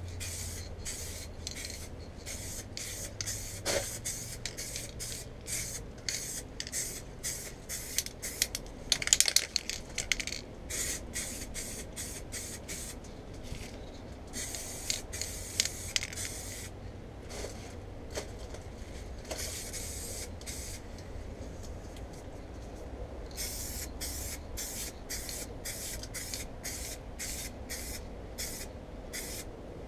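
Aerosol can of rubber dip coating spraying in many short hisses in quick succession, with brief gaps between passes.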